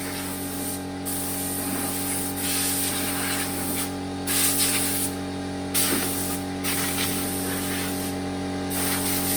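Compressed air hissing from an air compressor's blow nozzle in repeated blasts, cutting off briefly about five times, over the steady hum of the running compressor.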